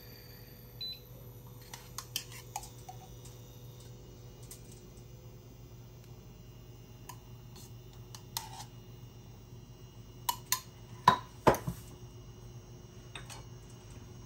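A few sharp knocks and clicks of a utensil against a frying pan as ghee is added, the loudest a quick cluster of four about ten to twelve seconds in, over a steady low hum.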